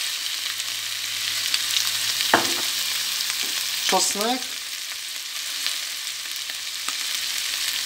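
Pork pieces with diced onion and parsley sizzling in hot oil in a frying pan: a steady frying hiss, with one short sharp sound a little over two seconds in.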